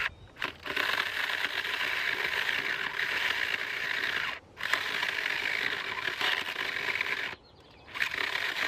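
Battery-powered mini chainsaw running and cutting through wood with a steady high buzz, cutting out briefly three times as the saw is stopped or bogs down in the cut.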